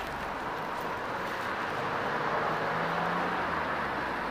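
Steady street traffic noise, an even rush of passing vehicles.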